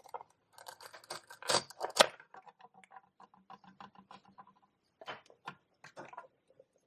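Toy knife cutting through a Velcro-joined toy watermelon slice: Velcro tearing apart in scratchy crackles, with sharp clacks of the toy pieces about 1.5 and 2 seconds in, then a few lighter clicks as the pieces are set down.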